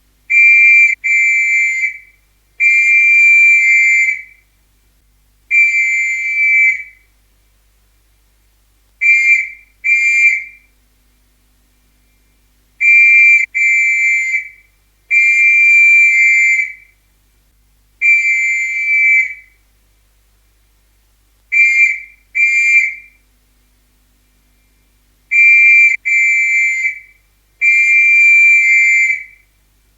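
Police whistle blown in a pattern of quick paired blasts and longer single blasts, with silent gaps between them.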